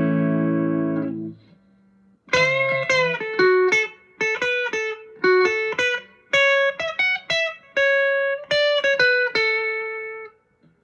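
Electric guitar played through a JHS Ross compressor pedal into a Vox AC10 amp. A chord rings out for about a second and a half, then after a short pause comes a picked single-note melodic phrase of long sustaining notes.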